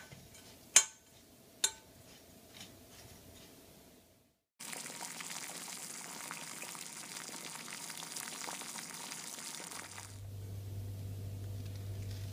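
A metal spoon clinks twice against a glass bowl while stirring a brown sugar mixture. About four and a half seconds in, a steady hiss begins; it stops suddenly about ten seconds in and gives way to a low steady hum.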